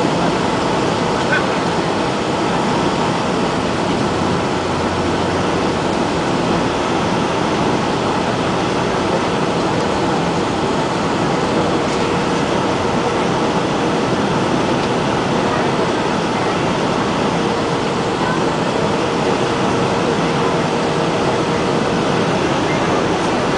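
Steady engine and airflow noise inside the cabin of a Boeing 757 on final approach, heard from a window seat beside the engine. A faint steady whine sits under it for several seconds in the middle.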